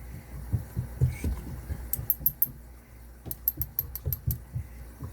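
Light clicks and ticks of small metal lock parts being handled as the pin stacks are taken out of a Yale padlock's core. Soft knocks come first, then about four sharp ticks around two seconds in and a quicker run of about seven in the second half.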